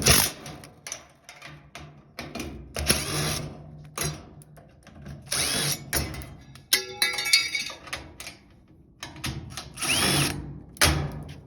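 A power drill/driver spins up and down in several short bursts, driving out the screws that hold a washer's cabinet panel. There is a run of clicks in the middle.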